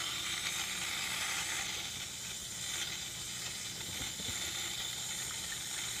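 Jura GIGA 6 automatic coffee machine frothing milk for two cafe lattes at once: a steady hiss of steam and milk foam spurting from the twin milk spouts into the glasses, over a faint low hum from the machine.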